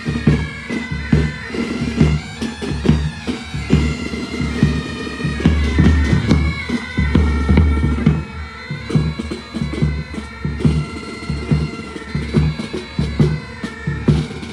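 Military pipe band playing: bagpipes carry a held melody over steady, regular drum beats.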